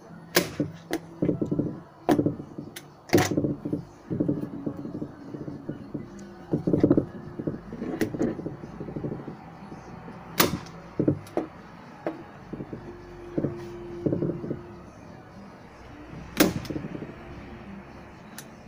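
Staple gun firing staples through vinyl into a trim panel: about six sharp shots, irregularly spaced a second to several seconds apart, with rustling and handling of the material and clothing in between.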